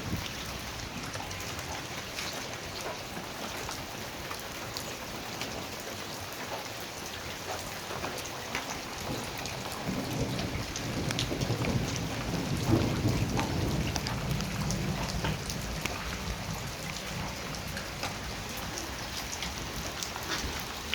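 Heavy rain falling steadily, with many small drop ticks, and a low rumble of thunder that swells about halfway through and dies away a few seconds later.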